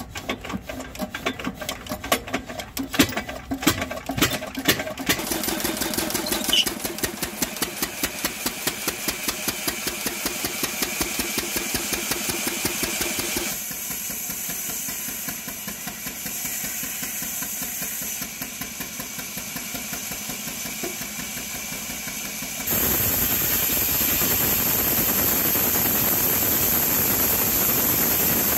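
Single-cylinder stationary diesel engine being hand-cranked, firing unevenly, then catching and running with an even beat. About 23 s in, the band saw it drives starts cutting a log: a loud steady hiss of the blade in the wood joins the engine.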